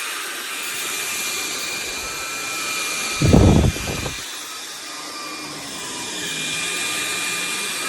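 SunSare cordless stick vacuum running steadily, a constant rush of air with a thin motor whine, with one brief low thump about three seconds in.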